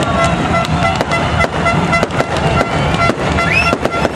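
V8 engines of BriSCA F1 stock cars burbling at low speed as they roll past, a low rumble broken by rapid, irregular sharp cracks and pops.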